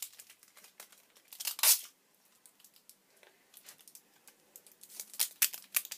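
Sticky tape being pulled off the roll and torn in short rips, with crinkling as it is handled. The loudest rip comes about one and a half seconds in, and several more come near the end.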